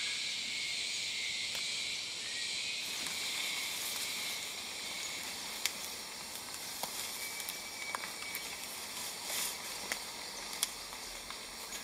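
Rainforest insect chorus: a steady, shrill hiss with a thin high tone at times and a few sharp clicks scattered through the second half.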